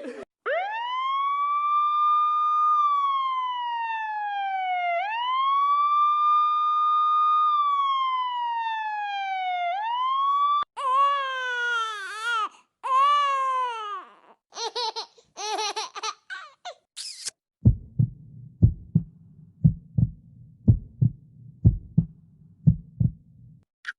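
A wailing siren sweeps slowly up, holds, then falls, twice over about ten seconds. It is followed by several seconds of quicker warbling and chirping tones, then a steady run of short, low thumps, roughly one or two a second, near the end.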